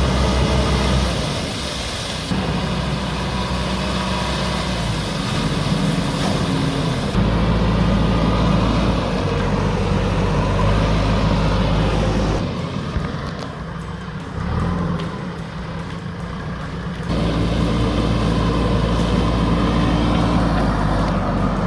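Heavy diesel machinery engines running, most likely a JCB excavator working. The sound changes abruptly several times as one clip gives way to the next.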